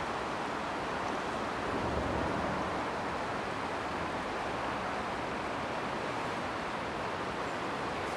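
Steady rushing of the Adige river in flood: fast, high, muddy water running along the bank.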